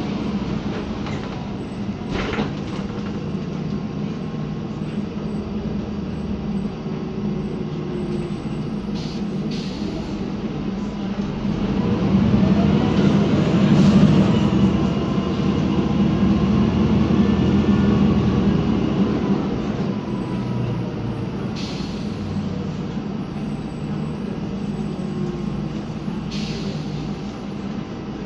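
Interior sound of a 2010 MAN Lion's Classic city bus underway, its MAN E2876 CNG engine running with a steady drone. The engine grows louder and rises in pitch as the bus accelerates about twelve seconds in, then eases off. A few brief knocks come from the body and suspension.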